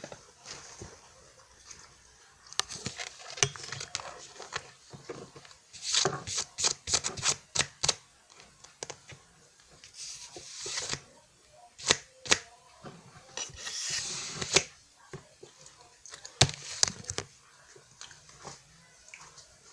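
Close-miked eating of a French Pie: crisp crunching clicks of the flaky puff pastry, a quick run of them in the middle, with bursts of rustling from the plastic wrapper.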